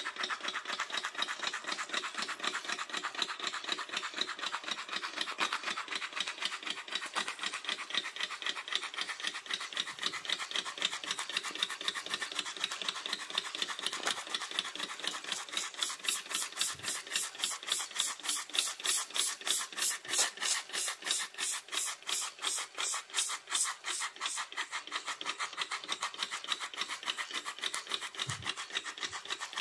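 Miniature alcohol-fired live-steam beam engine model running, with a fast, even rhythmic beat. About halfway through the beat grows louder and sharper for several seconds, then eases back.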